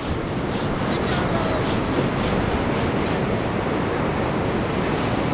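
Steady wind noise on the microphone over the wash of surf, with a light, regular scuffing about three times a second for the first few seconds.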